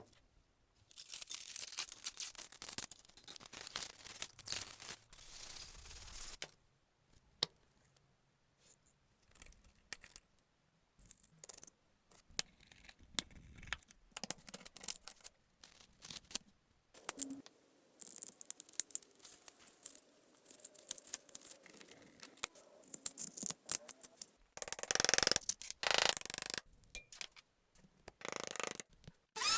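Hand work on an object: long stretches of scraping or rasping noise, broken by pauses full of small clicks and knocks.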